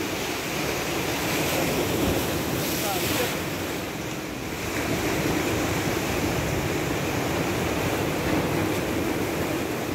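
Sea surf breaking against a rocky shoreline in a steady rush, with wind buffeting the microphone.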